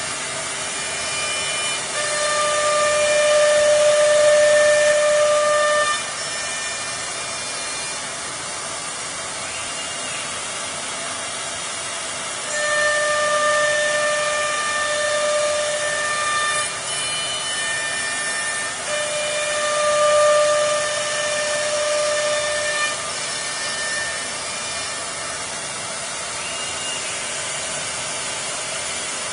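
Four-spindle CNC router running: a high whine in several pitches comes and goes in spells of a few seconds over a steady rushing hiss.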